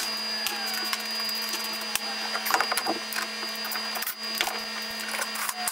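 Cordless drill/driver running in short spurts as fasteners are driven into a wooden support beam, with clicks and knocks of the work. A steady low hum runs underneath.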